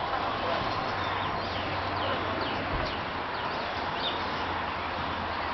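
Steady outdoor background noise with a low hum underneath and short, high chirps scattered throughout.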